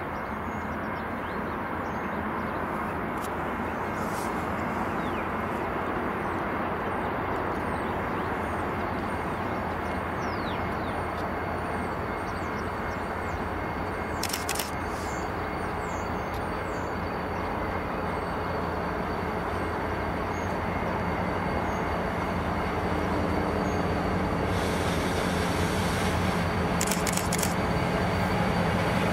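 V/Line A class diesel locomotive approaching: a steady low engine drone and rumble that grows gradually louder, most of all over the last few seconds.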